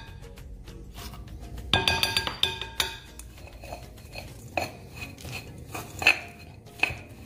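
Metal spoon stirring chopped almonds and caramel in a glass bowl, clinking against the glass: a quick run of ringing clinks a couple of seconds in, then single clinks every second or so.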